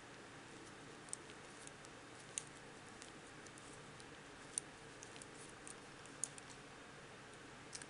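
Aluminium double-pointed knitting needles clicking lightly against each other as stitches are knitted: faint, irregular ticks, a few of them sharper, over quiet room tone.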